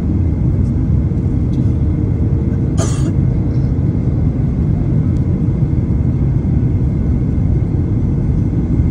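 Steady low rumble of a jet airliner's cabin on descent for landing: engine and airflow noise heard from a window seat. A brief hissing rustle cuts through about three seconds in.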